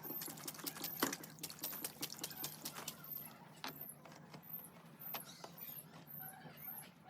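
A series of sharp, irregular clicks and taps, densest in the first three seconds and thinning out after.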